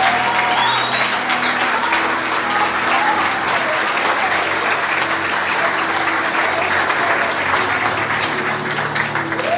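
A congregation applauding, with dense steady clapping, over soft background music with held notes.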